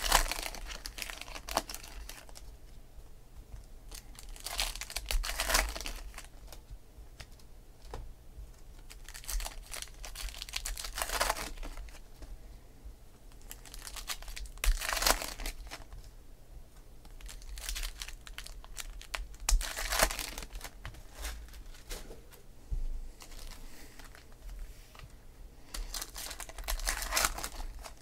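2016 Topps Gold Label baseball card packs being torn open by hand: bursts of wrapper tearing and crinkling every few seconds, mixed with the light rustle of cards being handled.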